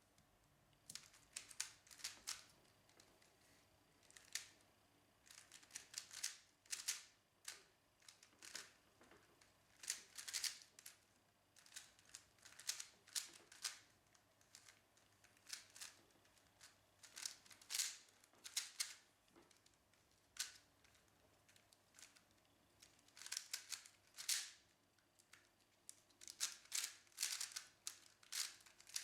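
A speedcube being turned fast: quick runs of plastic clicking and rattling, in bursts with short pauses between them.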